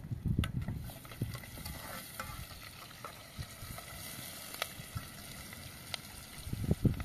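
Food frying and sizzling in a small metal pan over a wood fire, stirred with a spoon, which clicks against the pan now and then. A few louder low knocks come in the first second and again near the end.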